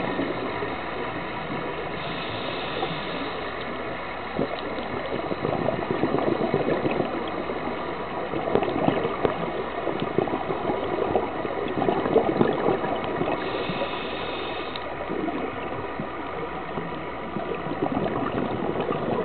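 Scuba regulator breathing underwater, with exhaled bubbles gurgling out in surges every few seconds.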